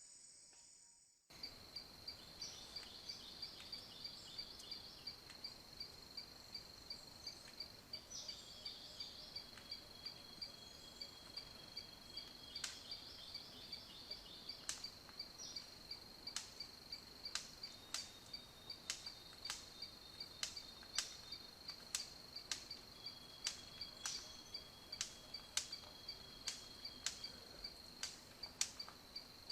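Crickets chirring in a steady, high-pitched pulsing drone, starting abruptly about a second in, with sharp clicks repeating about once a second and a few brief chirps.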